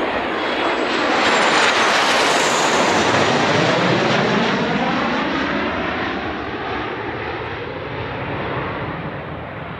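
Jet engines of two early swept-wing jet fighters flying past in formation. The noise is loudest in the first few seconds, then fades and dulls as the jets fly away.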